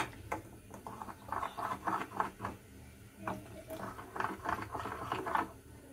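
Steel spoon stirring a thin flour-and-water slurry in a small ceramic bowl, scraping and tapping against the bowl in quick repeated strokes, in two runs with a short pause around the middle.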